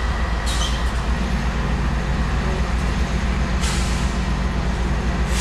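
Freight train rolling by: a loud, steady, heavy rumble with two brief hissing surges, about half a second in and again past the middle.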